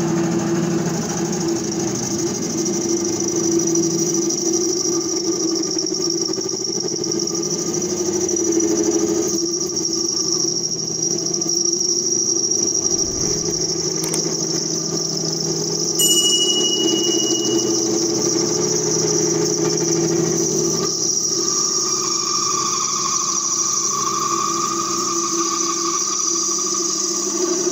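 Metal Master MML 2870 MV benchtop lathe running steadily, its chuck spinning a short tube while the cutter faces the tube's end. Its steady whine holds throughout, with a higher tone joining in past the middle as the cross-slide is fed in. A sharp click and a short chime sound once about halfway through.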